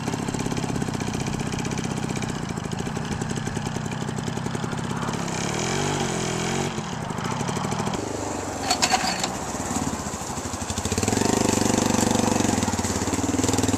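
Trials motorcycle engine running at low revs with pitch that rises and falls as the bike is worked up a rock, with a brief clatter of knocks about two-thirds of the way in. A second bike's engine takes over near the end.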